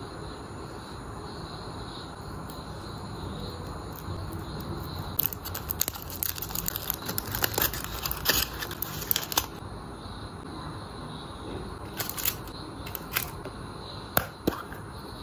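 Foil wrapper of a Kinder Surprise chocolate egg crinkling and crackling as it is peeled off by hand, for about four seconds starting some five seconds in. Then a few separate sharp clicks.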